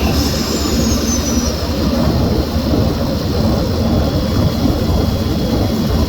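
Renault Megane 1.2 TCe turbocharged four-cylinder petrol engine running while driving, heard from inside the engine bay as a loud, steady din. A faint high whine falls in pitch over the first second and a half.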